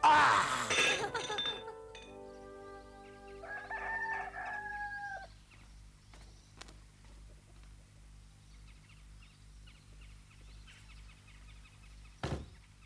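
A man's loud, hearty laugh for about two seconds, then a rooster crows once over soft held music. Near the end there is a short knock.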